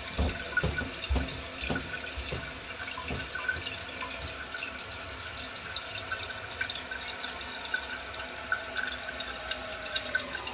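Water running steadily from a faucet into a sink, with light splashing and a few soft knocks early on, as hands are washed.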